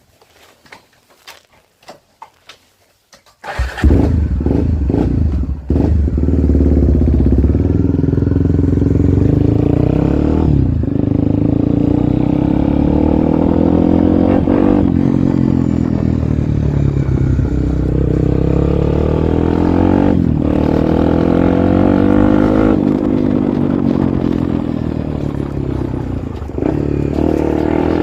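Honda XR 250 Tornado single-cylinder four-stroke engine, breathing through an FMF Powercore 4 silencer, starts up suddenly about three and a half seconds in after a few faint clicks. It then runs loudly, with the revs rising and falling again and again as the throttle is blipped.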